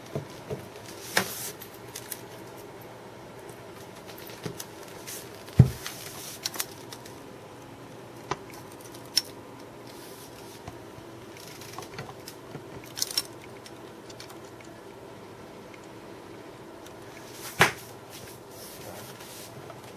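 Scattered light clicks and knocks from hands handling things on a lab bench, with one dull thump about five and a half seconds in and another knock near the end, over a steady low hum.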